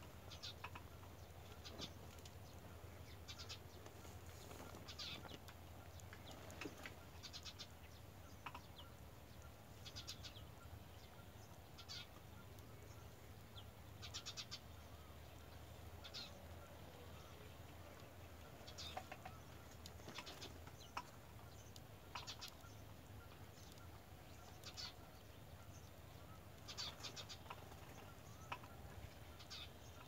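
Faint, high-pitched begging calls of a nestling: short rapid notes in little clusters every second or two, over a low steady hum.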